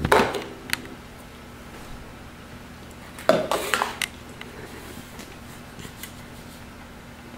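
Small plastic bowls clattering against a glass mixing bowl and a countertop as they are set down and picked up: a couple of sharp knocks at the start and a short cluster of clatters about three seconds in, then quieter handling as dry ingredients are tipped into the bowl.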